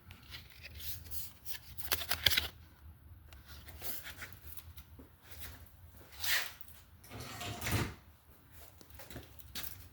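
Handling noise: rustling and scraping with scattered clicks, loudest about two seconds in and again for about a second near the end, over a steady low hum.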